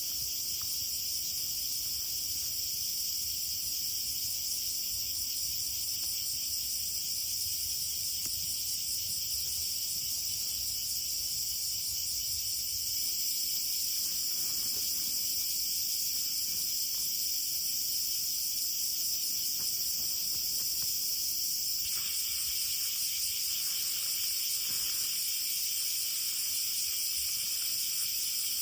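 Insects chirping in a steady, high-pitched chorus, with a little more hiss added about three-quarters of the way in.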